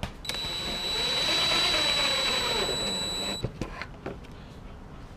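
DeWalt cordless drill driving a screw through a PVC tube into a wooden board. The motor runs with a steady whine for about three seconds, its pitch sagging as the screw seats, then stops abruptly. A few light clicks follow.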